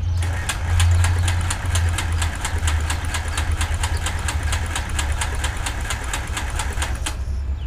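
Cessna 310's Continental six-cylinder engine cranking on its starter with the magnetos on, clicking about six times a second, and stopping about seven seconds in. It turns over without firing: the left engine gives not even a pop.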